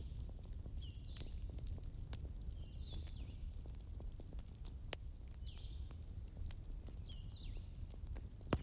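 Wood fire burning in a fireplace: a low steady rumble with scattered crackles and two sharp pops, one about five seconds in and one near the end. Short high chirps recur about once a second over it.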